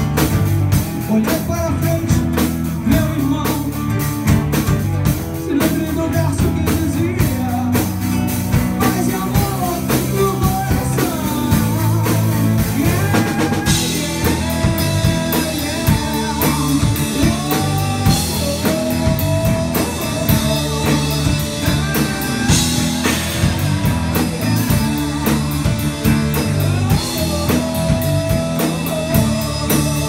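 Live rock band playing: drum kit, bass and electric guitar, with a melodic lead line weaving over the steady beat. The cymbals come in brighter about halfway through.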